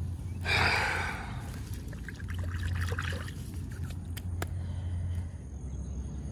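Footsteps rustling through thick weeds and grass on a pond bank. A loud brushing swish comes about half a second in, followed by lighter crackles and a single sharp click near the middle.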